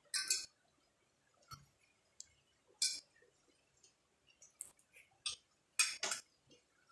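Eating sounds: a string of short, sharp crisp crunches and clicks, the loudest a close pair near the end, from food and cutlery during a mukbang meal of fried noodles with crackers.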